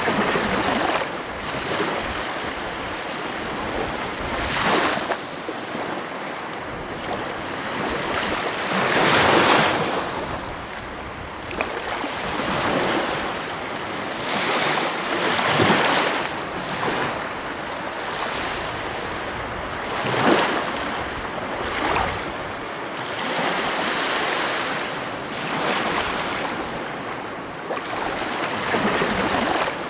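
Heavy ocean waves breaking on the coast: a continuous wash of surf that swells and falls every few seconds, with the loudest breakers about nine, fifteen and twenty seconds in.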